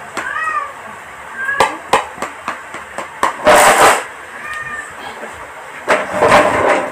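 Spoon and fork clinking against a plate of rice, with two short high calls. Two loud scraping noises, the second as a plastic chair is pushed back and he stands up.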